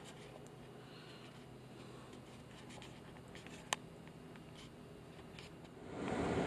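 Quiet steady background hum with a few faint ticks and one sharp click partway through; near the end a much louder steady noise sets in.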